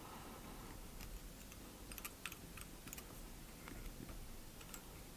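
Faint, irregular small clicks and ticks of fingers handling thread and a feather on a hook held in a fly-tying vise, over a low room hiss.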